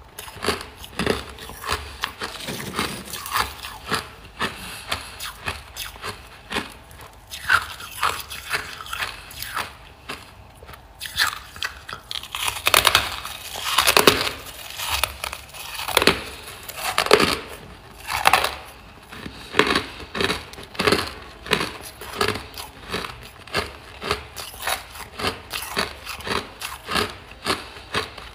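Hard, powdery chunks of freezer frost being bitten and chewed close to the microphone: a steady run of sharp, loud crunches, about two a second.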